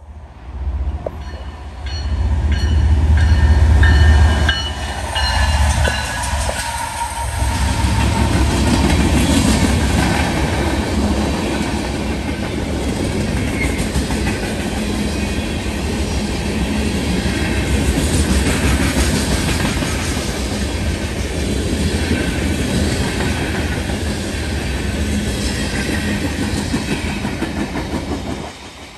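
A train passing at speed on the main line: heavy locomotive rumble as the head end goes by, with high tones that drop slightly in pitch, then steel wheels clacking over the rail joints as the cars roll past for over twenty seconds before the sound falls away near the end.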